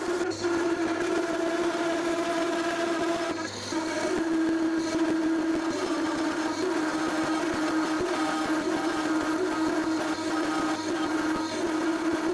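Lathe parting-off tool chattering as it feeds into the spinning workpiece, making a steady pitched drone with overtones that breaks off briefly about three and a half seconds in. It is chattering like crazy: the tool is vibrating in the cut.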